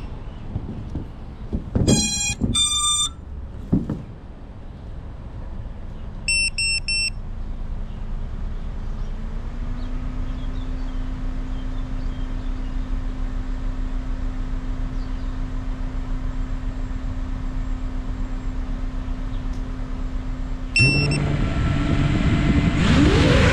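FPV quadcopter on the ground: a few short electronic beeps from its electronics, then its motors spin and idle with a steady low hum from about ten seconds in. About three seconds before the end another beep sounds and the motors throttle up louder as it lifts off.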